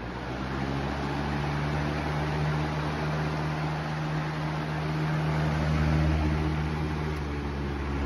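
Lasko Cool Colors box fan running just after being switched on, picking up speed over the first couple of seconds. Its motor hums steadily under an even rush of air.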